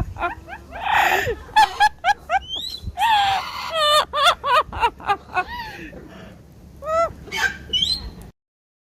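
Parrot calling: a fast run of short whistles and chirps that bend up and down, with a few harsh squawks mixed in. It cuts off suddenly near the end.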